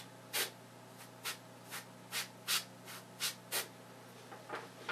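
Copic marker airbrush giving about eight short hissing puffs of spray, each a fraction of a second, at uneven intervals, as it colours a foam fly head.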